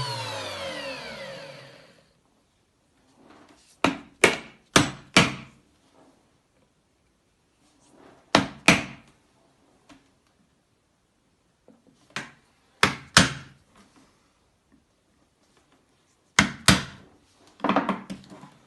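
A milling machine's motor spins down with falling pitch and stops about two seconds in. After it come sharp wooden knocks in small groups of two to four, a few seconds apart, as the wooden scabbard liner being rough-milled is handled and knocked on the bench.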